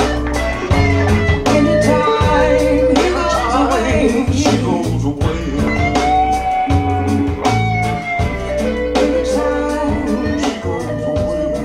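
Recorded song with a singer, guitar, bass and drums playing through TAD Evolution One TX floor-standing loudspeakers driven by T+A electronics.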